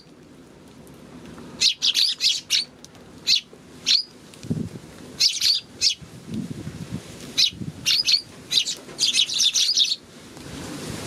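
A flock of Eurasian tree sparrows chirping at close range in quick bursts of short, high chirps, with soft low thuds between the bursts.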